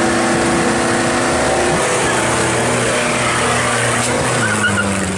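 Engine of a stripped-down 1994 Mitsubishi cab-over drag truck running loudly at a steady pitch, which drops slightly about four seconds in.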